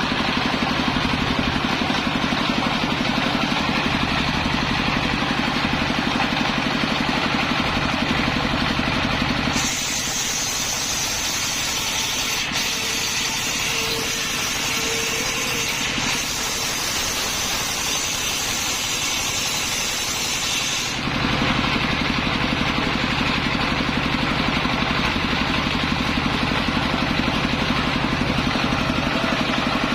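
Engine-driven circular saw running steadily with a low drone. About ten seconds in, the drone gives way for about eleven seconds to a bright hissing whine as the blade cuts through coconut-palm timber, then the steady drone returns.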